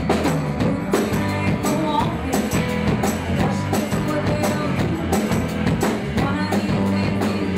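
Live band playing a soul/dance number: a drum kit keeps a steady beat under bass guitar while a woman sings into a handheld microphone.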